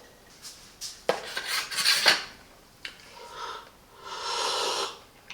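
Espresso cup and spoon clinking and scraping, with a few sharp clicks, then a steadier rustling noise for about a second near the end.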